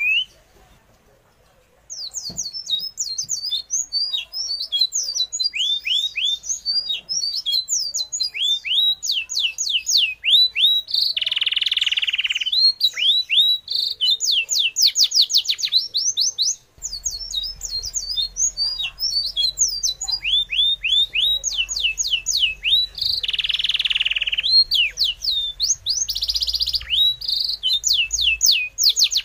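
Birds chirping: quick runs of high chirps, each sliding down in pitch, starting about two seconds in after a near-silent moment, with a few short bursts of hiss among them and a low hum joining past the halfway point.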